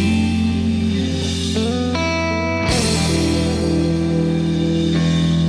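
Background music led by guitar, with held chords that shift twice near the middle.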